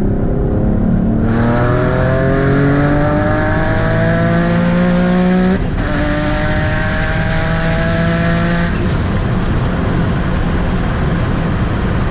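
Turbocharged Nissan 350Z HR's VQ35HR V6 engine in a hard full-throttle pull, revs climbing steeply. It shifts up about five and a half seconds in, then climbs again. Near nine seconds in, the engine note gives way to a steady rushing noise.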